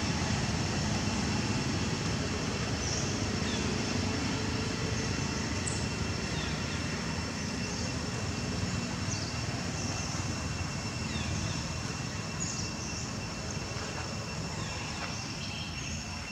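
Outdoor ambience: a steady low rumble with a thin, steady high-pitched drone and scattered short high chirps.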